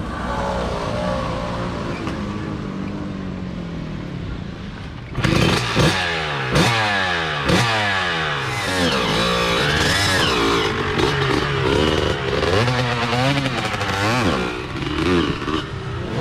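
2004 Honda CR125 two-stroke motocross engine kick-started and catching about five seconds in, then revved hard in quick blips, rising and falling over and over, as it warms up. Before it catches, an engine runs more quietly.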